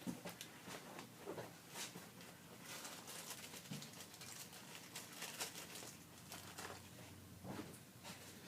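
Faint, scattered clicks and rustling from handling small machine screws and the freshly tapped metal part.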